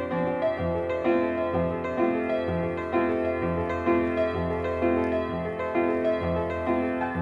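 Background piano music: a steady melody of notes about twice a second over a regular low bass pulse.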